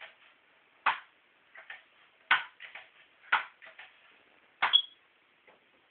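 Crosman Pumpmaster 760 air rifle being pump-charged: four sharp clicks about a second apart, each trailed by lighter clicks of the pump lever. The last stroke ends with a short metallic ping.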